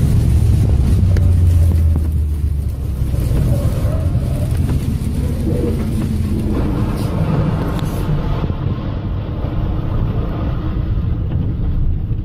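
Car driving on a rain-soaked highway, heard from inside the cabin: a loud, steady low rumble of engine and tyres on the wet road.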